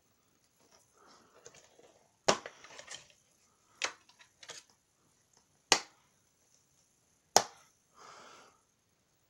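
A plastic DVD case being handled and opened, with the disc taken off its centre hub: four sharp plastic clicks and snaps about a second and a half apart, with soft rustling between.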